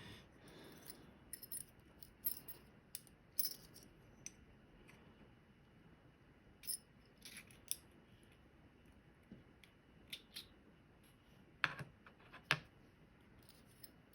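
Faint, scattered metallic clicks and ticks of a Medeco lock cylinder's small parts being handled as it is taken apart with a plug follower, with two sharper knocks near the end.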